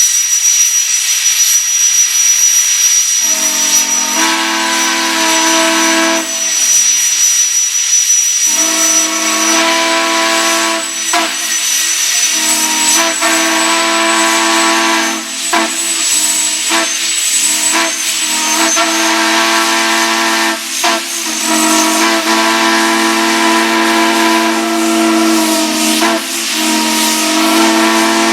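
Steam whistles blowing on live steam with a strong hiss. A small, very high-pitched whistle sounds from the start. About three seconds in, a large deep-toned whistle joins and is blown in several long blasts with brief breaks.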